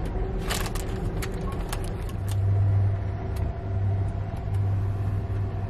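Running noise of a moving Amtrak Auto Train heard inside a passenger car: a steady low rumble and hum that swells about two seconds in, with scattered sharp clicks and rattles.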